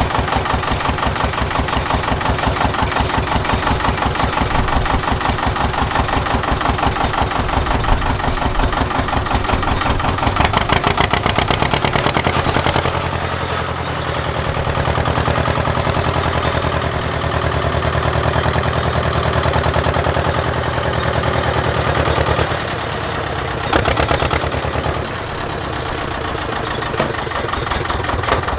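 An engine running at idle with a rapid, even knocking beat. About halfway through its sound turns deeper and steadier, and its higher clatter drops away.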